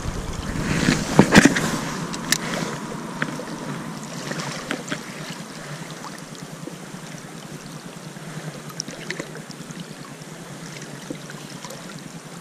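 Creek water flowing steadily, with a few louder rustles and knocks in the first two seconds and scattered light ticks after.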